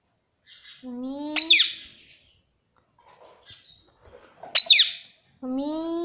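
Indian ringneck parrot (rose-ringed parakeet) calling in shrill screeches. About a second in, a lower note rises and breaks into a sharp falling screech. A second screech comes past the middle, and near the end another rising note starts toward a screech.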